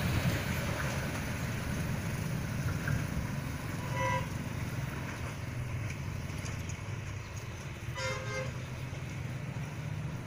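Horn of an approaching train giving a short blast about four seconds in and two more short blasts near eight seconds, over a low steady rumble.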